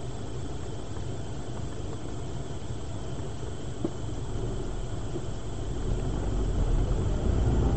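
Low engine and cabin rumble of a car heard from inside, idling at a standstill and then pulling away, growing louder over the last couple of seconds.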